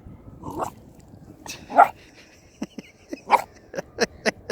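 Cockapoo puppy barking in a string of short, sharp barks, a few spaced out at first and then coming faster near the end: wary barking at an unfamiliar figure.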